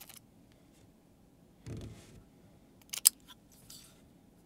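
Handling of a metal Stubby 21 all-in-one vape device: a soft thump just under two seconds in, then two quick sharp metallic clicks about three seconds in.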